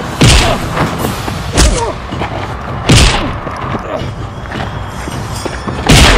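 Four heavy thuds of fight-blow sound effects: one right at the start, one after about a second and a half, one around three seconds in and one near the end. Background music plays under them.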